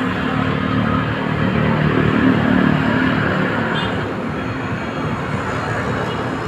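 Steady road traffic noise, with a vehicle engine humming close by that fades after about three seconds.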